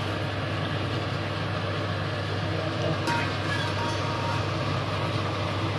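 Pot of water and herbs at a full boil over a high gas flame: a steady rushing, bubbling noise over a constant low hum.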